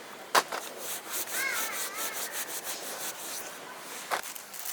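Repeated short rubbing or scraping strokes, with a sharp click about half a second in. A warbling, wavering call, like a bird's, sounds briefly in the middle.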